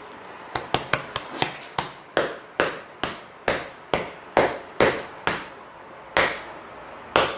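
Plastic shaker tub of powdered sugar shaken over a bowl, each shake a short knock, about two to three a second, spacing out near the end.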